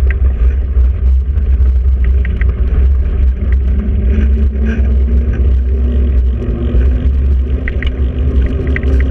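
Heavy, steady low rumble of wind and road vibration on a GoPro action camera's microphone while moving, with scattered light rattling clicks.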